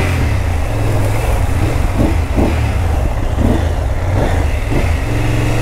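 BMW F 850 GS parallel-twin engine running steadily at low speed as the motorcycle wades through knee-deep flood water, with the rush and splash of water around the bike.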